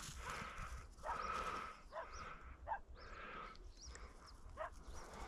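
A Labrador retriever breathing hard and sniffing as it works a scent, in soft repeated breaths about once a second, with a few short high chirps.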